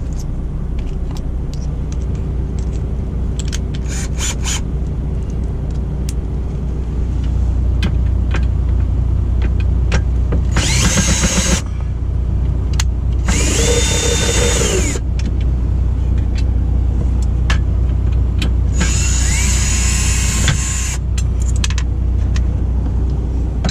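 Ryobi ONE+ cordless drill/driver backing out bracket screws in three short runs, its motor whine rising as it spins up and falling as it slows. Underneath is a steady low rumble, with scattered clicks of handling and bit-fitting in the first few seconds.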